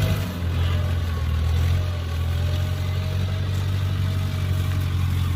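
Kubota combine harvester's diesel engine running steadily, with a faint whine from the machine alongside the low drone.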